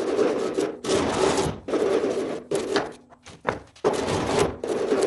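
Cut end of a 1-inch PVC pipe rubbed back and forth on a sanding disc to smooth it: a run of scratchy sanding strokes, about one a second, with a brief pause about three seconds in.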